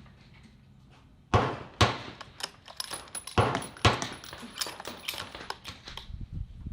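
Several sharp knocks followed by a run of quick metallic clicks and clinks, the sound of hard metal gear being handled at a shooting bench.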